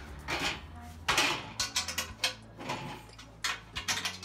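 Spanner clinking and rattling on a nut and bolt of a steel sewing-machine stand leg as the bolt is tightened, a string of irregular sharp metallic clicks and clanks.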